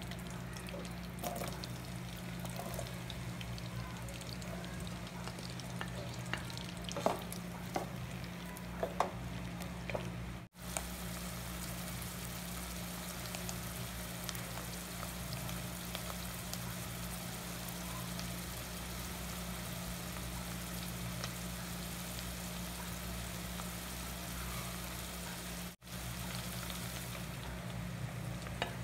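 Butter sizzling and frying in a pot, a steady hiss over a low hum, with a few sharp ticks and clicks in the first ten seconds.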